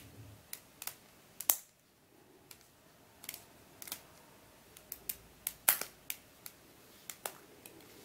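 Irregular sharp plastic clicks and snaps from a mf8 Square-1 v1 puzzle being handled and its middle-layer cap prised off, about a dozen in all, the loudest about one and a half seconds in and near six seconds.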